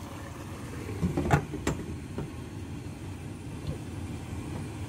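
Glass pot lid knocking onto a cooking pot, two sharp clinks about a second and a half in, over a steady low rumble.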